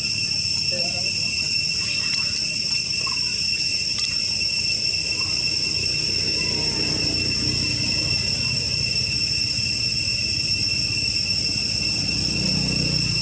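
Steady high-pitched insect drone, like a chorus of cicadas or crickets, holding several unchanging pitches, over a low steady rumble.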